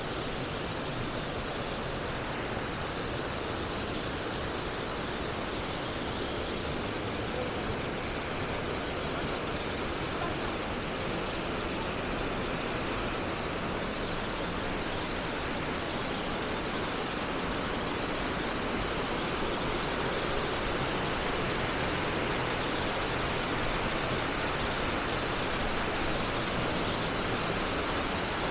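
Steady rush of the Nabegataki waterfall, an unbroken hiss of falling water, growing slightly louder about two-thirds of the way through.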